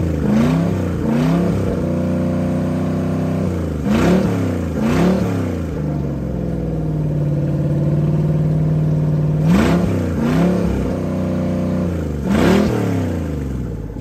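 Crusader 6.0L LQ4 V8 marine engine, freshly rebuilt and on its test run, idling and blipped up and back down in quick pairs of revs, about seven blips in all. It exhausts through open wet-exhaust hoses that blow out water spray.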